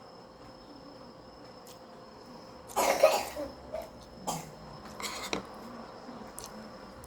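A person coughing: one loud cough about three seconds in, then two softer ones.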